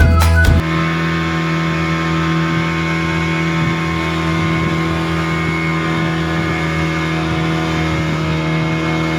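Boat engine running steadily at a constant speed, a continuous even drone.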